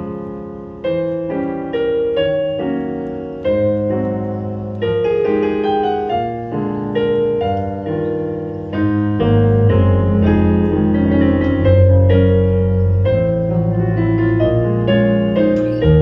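Kurzweil SP2X digital stage piano playing a solo instrumental interlude of struck chords and a melody, each note ringing and fading. The bass notes get fuller and the playing a little louder from about nine seconds in.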